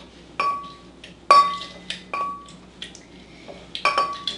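Metal muddler crushing cherries in a tall drinking glass, knocking against the glass several times at uneven intervals, each knock followed by a brief ringing of the glass.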